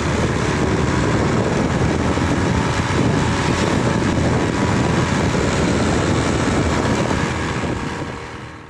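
Steady road noise of a moving vehicle with wind buffeting the microphone, fading out near the end.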